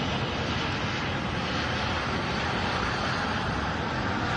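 Airbus A330 airliner's jet engines making a steady rushing noise as the airliner rolls down the runway on its landing roll.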